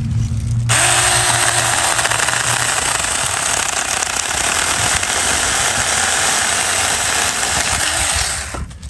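Saker mini 4-inch cordless electric chainsaw cutting through a log. The motor hum is joined, about a second in, by the loud, steady noise of the chain cutting through wood, which stops shortly before the end.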